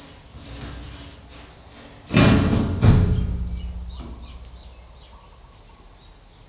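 Two loud knocks a little under a second apart, about two seconds in, each ringing and dying away over the next couple of seconds, over quiet background music.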